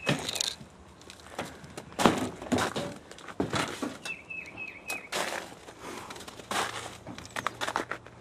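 Irregular footsteps crunching through snow and dead brush. About four seconds in, a bird gives four short, quick, falling chirps.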